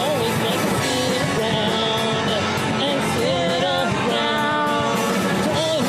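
Live rock band playing a song: full band with guitar and a wavering lead melody over it.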